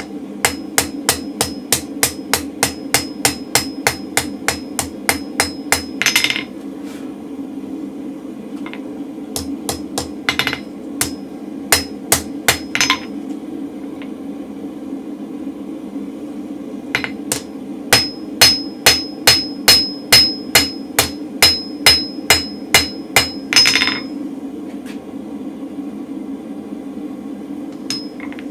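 Hand hammer striking hot mild steel on an anvil in three runs of quick, even blows, about three a second, flattening the bar's end down to the thickness of the rest. Many blows carry a high anvil ring.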